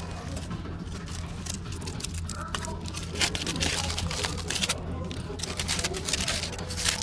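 Aluminium foil crinkling and crackling in irregular bursts as a wrapped burrito is opened, over a steady low hum.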